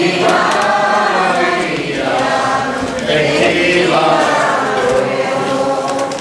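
A crowd of voices singing a devotional chant together, in held phrases with short breaks between them.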